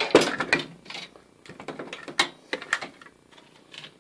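Plastic chargers, power adapters and their cords being handled and set down on the carpet liner of a metal toolbox drawer. It rustles and clatters, busiest in the first half-second, then gives a few sharp clicks, the strongest about two seconds in.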